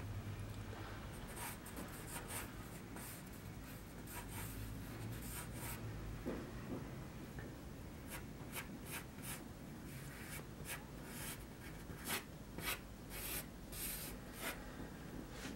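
Graphite pencil sketching on paper: short, scratchy strokes, coming thicker and quicker in the second half. A low hum runs under the first few seconds and fades out.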